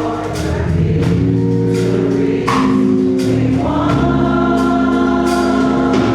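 Gospel choir singing long held chords over instrumental accompaniment, with occasional sharp percussive hits.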